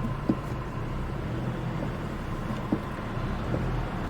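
Car engine running at low speed as the car is driven slowly, a steady low hum.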